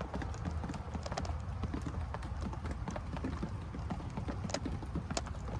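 Footsteps crunching and clicking over storm debris, irregular and close, over a low steady rumble.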